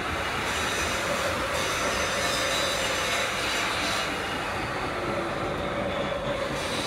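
Steady mechanical noise from a workshop machine, with a thin, high squeal held over it.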